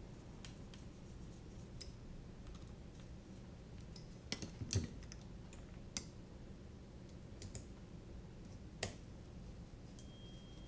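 Scattered small clicks and taps of carbon-fibre drone frame parts, screws and a screwdriver being handled on a silicone work mat, with a quick cluster of clicks a little before the middle and single sharper ones after it, over a low steady hum.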